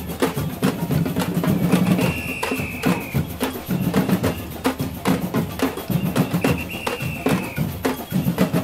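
Batucada samba drums playing a fast, driving rhythm, with a whistle blown in two long blasts, about two and six and a half seconds in.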